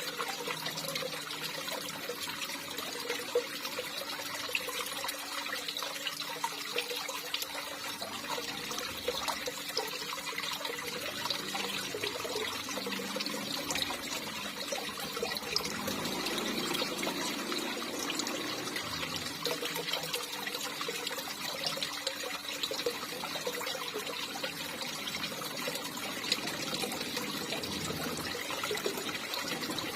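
Water trickling and pouring steadily, with many small splashes.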